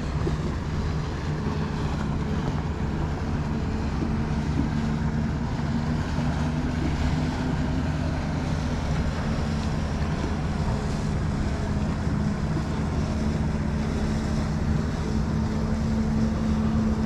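A boat engine running steadily, a low hum that grows stronger in the second half, with wind noise on the microphone and the wash of water around the hull.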